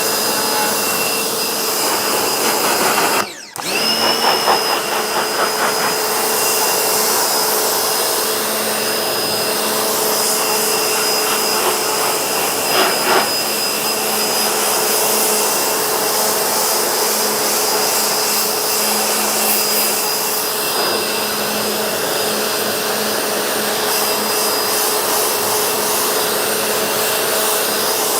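Vacuum cleaner running steadily, a rushing hiss with a constant whine, with a brief drop-out about three seconds in.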